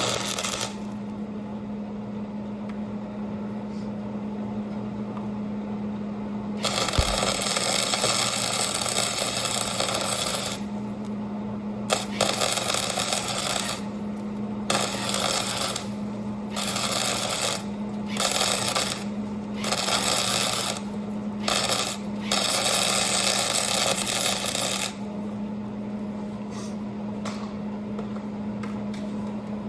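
Electric welding arc crackling while welding leaf spring slider brackets onto a truck frame: one weld run of about four seconds, then a string of short stop-start welds of a second or so each, over a steady electrical hum.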